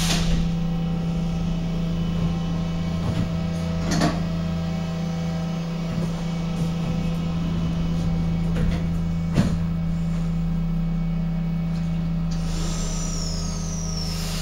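Stadtbahn light-rail car standing at an underground platform, with a steady electrical hum, a few short knocks, and a falling high whine near the end.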